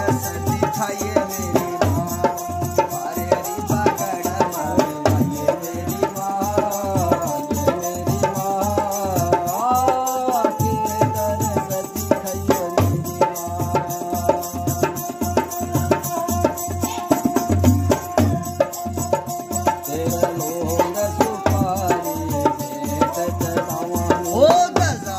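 Folk music: a bowed long-necked string instrument plays a sliding, wavering melody over a quick, steady hand-played rhythm on a rope-tensioned dholak barrel drum.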